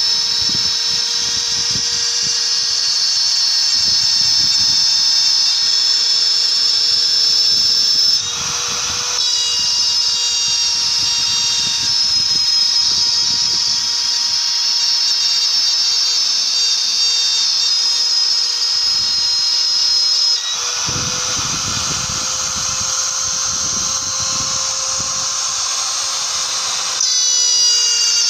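CNC router running: its trim-router spindle whines steadily at high speed along with the stepper-motor drives. The tone and level shift abruptly about eight seconds in, again about twenty seconds in, and near the end, as the machine changes its motion.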